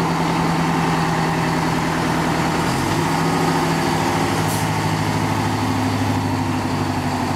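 Engine of an American tractor-drawn aerial ladder fire truck running as the truck rolls slowly past. The engine note changes about three seconds in, and a short hiss sounds about four and a half seconds in.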